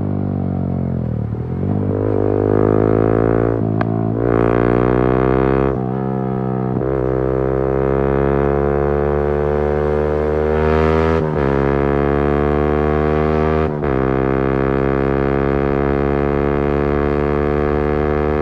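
Yamaha MT-15's single-cylinder engine through a Leo Vince aftermarket exhaust with custom bend pipe, riding. The revs drop about a second in, then climb through the gears, with a short dip at each of several upshifts.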